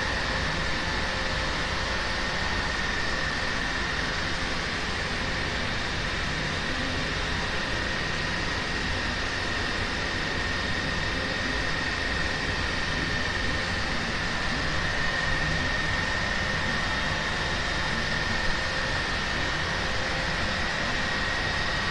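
Steady droning noise with a constant high-pitched whine and a fainter lower tone.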